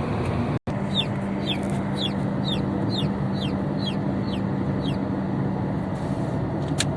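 Ross 308 broiler chicks peeping, a run of short falling chirps about two a second, over steady car road noise.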